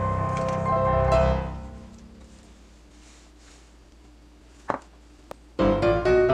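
Background instrumental music with piano-like notes. It fades out about a second and a half in, leaving a quiet stretch broken by two short clicks. The music starts again near the end.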